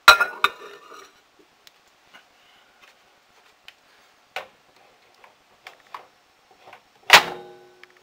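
Ceramic mug set down on a microwave oven's glass turntable with a sharp clink, followed by scattered faint clicks and handling knocks. About seven seconds in, a loud clunk with a brief ringing tone after it as the microwave door is shut.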